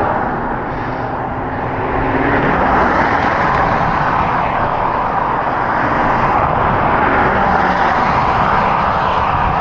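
Steady traffic noise: cars and trucks passing alongside the bicycle in the next lane, blended with wind rushing over the moving microphone, swelling a little about two seconds in.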